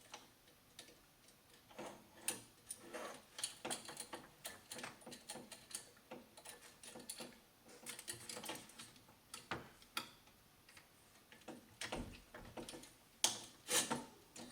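Irregular small clicks and taps as the drive wire is seated under the plate and into the grooves of a motorized curtain track's master carrier, with the loudest taps near the end.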